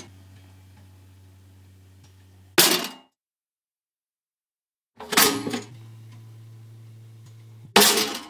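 Pop-up toaster cycling twice: a steady electrical hum while it toasts, cut off by the loud clack of the spring-loaded carriage popping up. After a short silence, about five seconds in, the lever is pushed down with a clattering clack, the hum starts again, and it pops up once more near the end.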